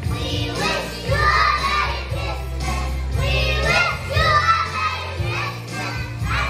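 A group of young children singing a song together over backing music with a steady bass line.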